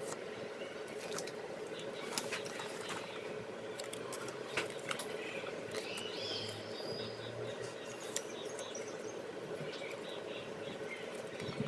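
Trading cards being handled: scattered light clicks and rustles, with a brief squeak about six seconds in, over a steady hum.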